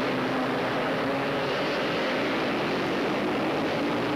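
Engines of several three-wheeler ATVs racing together: a steady, dense engine drone whose pitch drifts up and down as the riders work the throttle.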